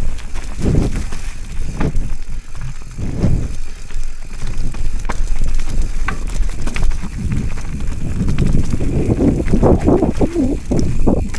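Mountain bike riding fast down a rough trail: tyres rumbling over dirt and roots, with uneven rumble and scattered sharp knocks and rattles from the bike, busiest in the last few seconds.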